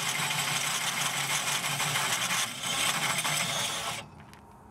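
Cordless drill spinning a hole saw in a tube notcher, cutting a thin slice off the notched end of a metal tube to dress the fit. The drill is released and the cutting stops about four seconds in.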